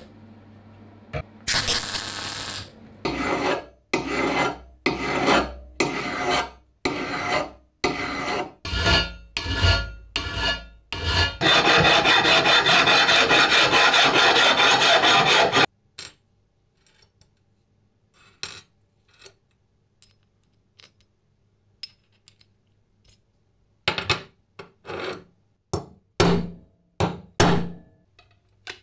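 A short MIG welding burst near the start. Then a flat hand file is pushed across a steel plate in long rasping strokes, about one a second, with a few seconds of steady continuous filing around the middle. Scattered light clicks follow, and a few more strokes come near the end.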